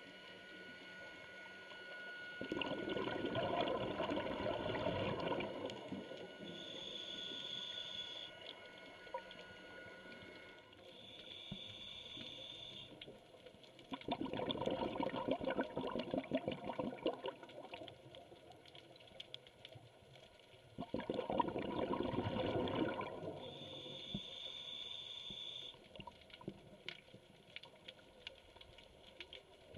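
Scuba diver breathing through a regulator underwater. Three loud, bubbling exhalations of a few seconds each, with quieter hissing inhalations between them.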